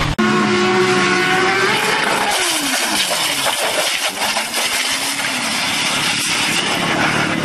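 Motorcycle engines running: a steady engine note for the first two seconds or so, then the pitch sliding down and later rising again, over a steady rushing hiss.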